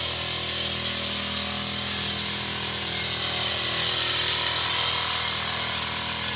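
Small engine of a powered crop sprayer running steadily at an even speed, with a hiss over it.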